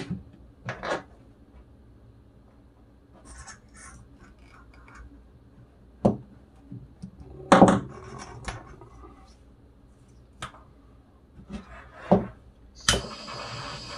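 Small hand wire cutters snipping through the thin leads of a wire harness: a few sharp separate clicks several seconds apart, with light rustling of the wires being handled between them.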